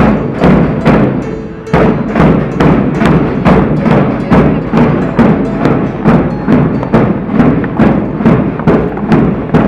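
A drum beating a steady marching rhythm, about two and a half beats a second, after a short pause about a second in.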